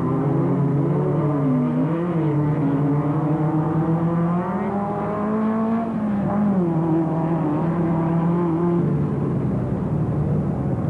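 Off-road race car's engine running hard, its pitch rising and falling as it revs and changes speed over rough ground; the tone thins into a rougher noise near the end.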